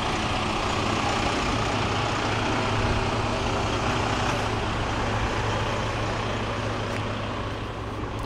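Semi tractor's diesel engine idling steadily, a low even drone that grows a little fainter near the end.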